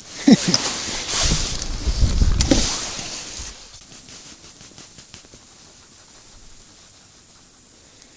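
Close rustling and handling noise with a low rumble for the first three and a half seconds, as a freshly caught roach is taken off the hook and put away, then a steady soft hiss of wind over open ice.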